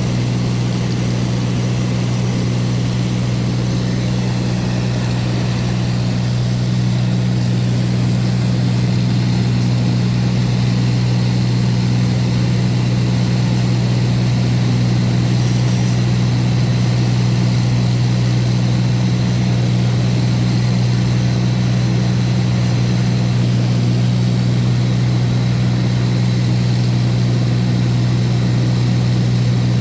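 Light aircraft's engine and propeller droning steadily, heard from inside the cabin, with a deep, even hum.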